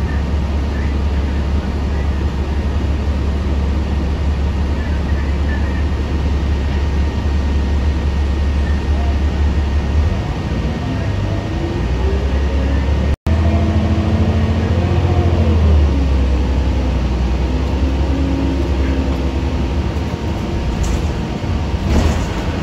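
Inside a moving city bus: a steady, loud low rumble of engine and road. In the second half the engine note climbs and falls as the bus changes speed, with a brief cut-out partway through.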